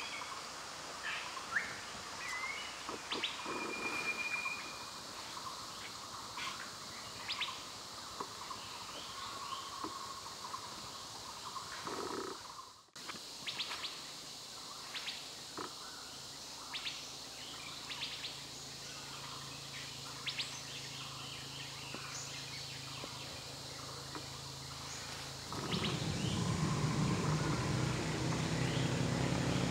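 Forest ambience with assorted birds chirping and calling in short scattered notes, including a short steady whistled note a few seconds in. The sound drops out briefly about halfway through, and a low steady hum comes in near the end and is louder than the birdsong.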